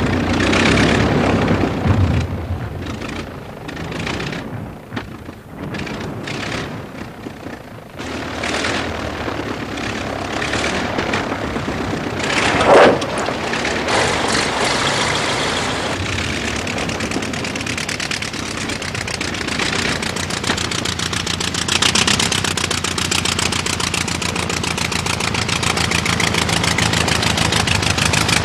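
An engine running, its closely spaced firing pulses steady and growing slightly louder toward the end. The first few seconds hold uneven loud noises, and a single sudden loud sound comes about 13 seconds in.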